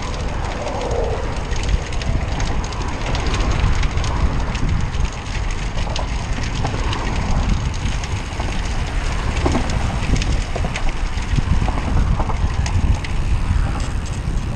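Wind buffeting the camera microphone on a moving road bike, a steady low rumble, with scattered small clicks and rattles from the bike.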